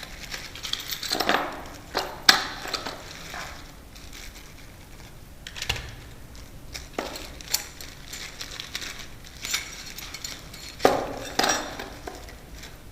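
Small metal screws and lock parts clinking and rattling as they are handled, with scattered sharp clicks; the loudest come about two seconds in and again near the end.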